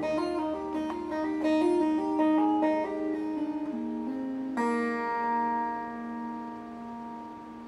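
Acoustic guitar played solo, fingerpicked: a run of single plucked notes, then a chord struck about four and a half seconds in and left ringing as it fades.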